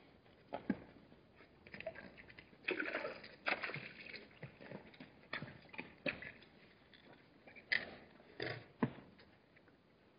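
Hartmann's mountain zebras drinking at a waterhole: irregular sloshing and splashing of water, with a busier spell a few seconds in, and several sharp knocks scattered through.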